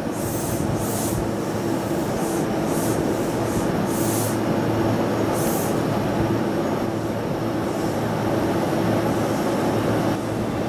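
E233-3000 series electric train standing at the platform, its onboard equipment giving a steady hum. Several short high hisses come in the first half.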